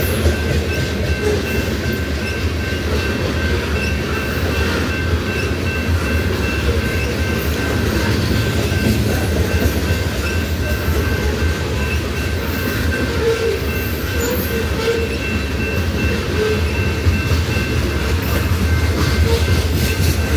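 Loaded covered hopper cars of a grain train rolling past, a steady rumble of steel wheels on the rails with clickety-clack from the rail joints. A steady high ringing from the grade crossing's warning bell runs through it.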